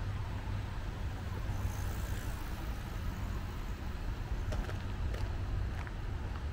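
Steady low rumble of distant road traffic, with a few faint clicks in the second half.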